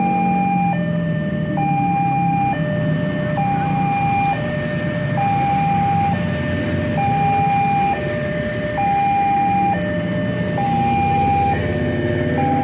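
Indonesian railroad level-crossing alarm sounding its two-tone warning of an approaching train: a higher and a lower electronic note alternating evenly, each held just under a second. Motorcycle and car engines run underneath.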